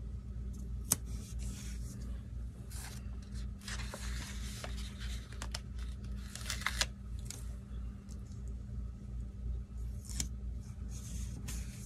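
Paper stickers being peeled off a sticker sheet and pressed onto planner pages: soft rustling and peeling in short spells, with a few light taps, over a steady low hum.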